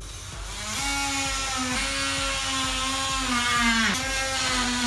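Oscillating multi-tool undercutting a wooden door casing and jamb, with its blade laid flat on a vinyl plank. It runs up to a steady high buzz in the first second, and its pitch sags briefly about four seconds in as the blade bites, then comes back up.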